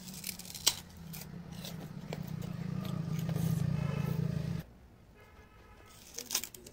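Sugarcane being bitten and its peel torn off with the teeth: a sharp crack about a second in and crackling snaps near the end. Under the first part runs a steady low hum that stops abruptly a little after the middle.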